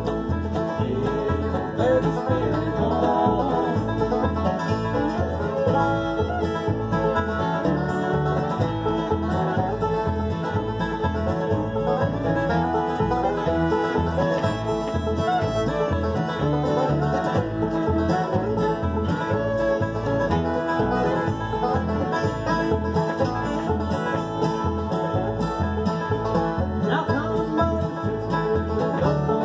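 Acoustic bluegrass band playing: five-string banjo rolls, fiddle, strummed flat-top guitar and upright bass on a steady beat.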